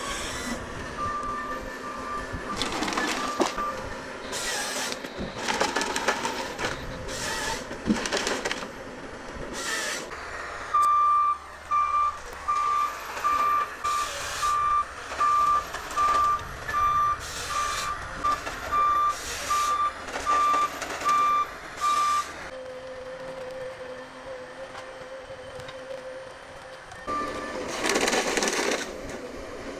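Heavy machinery running with repeated clanks, and a vehicle's reversing alarm beeping steadily, about one beep every 0.8 seconds, through the middle of the stretch.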